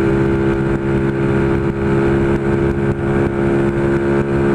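Honda Pop 110's small single-cylinder four-stroke engine running at steady high revs at speed, its pitch held level, with wind rumbling on the microphone.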